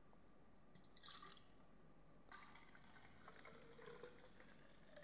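Faint sound of water poured from a plastic beaker into a tall plastic graduated cylinder, a steady trickle starting about two seconds in, to dilute a wetting agent. A brief trickle about a second in.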